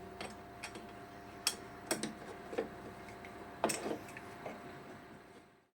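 Scattered light clicks and taps, a few of them sharper, over a steady faint hum; the sound fades out to silence just before the end.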